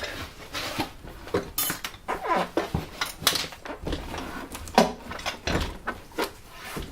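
Objects being handled and moved aside: a busy run of short knocks, clicks and clatters with some rustling.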